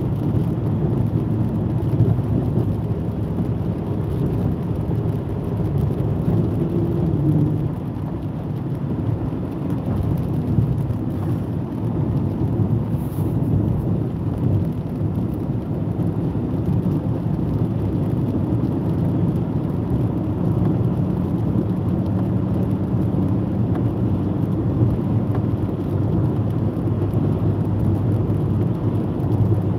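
Steady low rumble of a car driving on a wet motorway, heard inside the cabin: tyre and road noise with the engine running.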